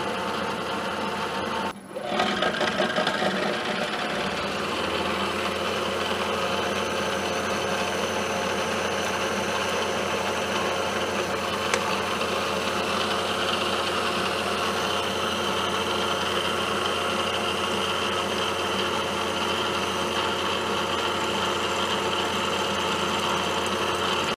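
Milling machine spindle running steadily while it cuts into a metal hub, drilling the hole for a dowel-pin key. The sound breaks off briefly and changes about two seconds in, then runs on evenly.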